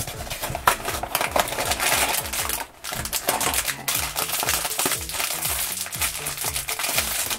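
Cardboard blind box handled open, then a foil blind bag crinkled and worked open in the hands: dense, crisp crackling and rustling. Quiet background music with a bass line underneath.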